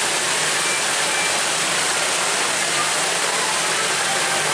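Fountain water jets splashing, a steady even hiss.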